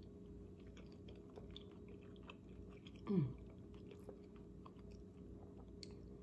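A person chewing a mouthful of chicken and rice, faint, with small scattered clicks. About three seconds in, a short falling hum from her voice.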